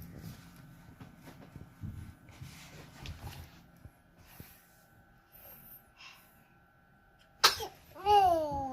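A baby sneezes once, a sharp, loud burst about seven and a half seconds in, after a stretch of faint rustling. It is followed by a short voice sound that falls in pitch.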